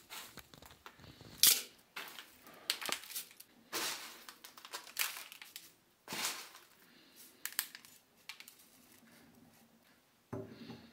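Handfuls of dry flakes rustling as they are dropped into a steel cylinder mold, in a string of short, sharp bursts, the loudest about a second and a half in. Near the end a heavier rubbing sound starts as the steel punch goes into the mold.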